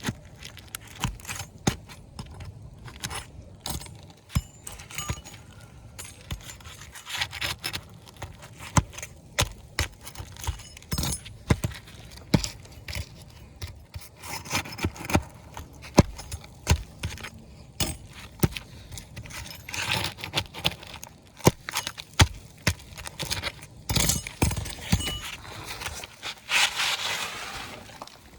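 Hand tool work on an asphalt shingle roof: irregular clicks, knocks and short scrapes of a flat pry bar (snake bar) worked under brittle shingles to pull roofing nails, with a longer scraping rustle near the end.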